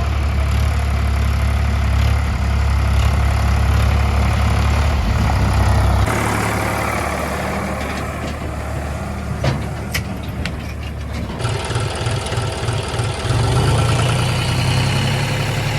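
Tractor diesel engine running steadily. Its sound changes abruptly about six seconds in, a few sharp clicks come a few seconds later, and then the engine runs on with a rhythmic low pulse.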